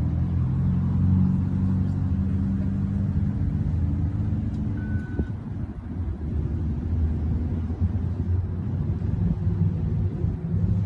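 Steady low engine drone with a pitched hum, easing briefly about halfway through, with a short high tone about five seconds in.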